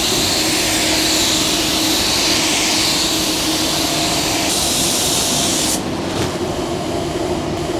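Compressed-air paint spray gun hissing steadily as it sprays paint, cutting off about six seconds in, over a steady low hum.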